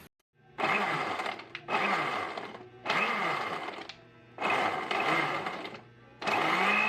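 Electric blender-grinder motor run in short pulses: five bursts of about a second each, its pitch climbing as it spins up and dropping as it slows, the last burst held longer.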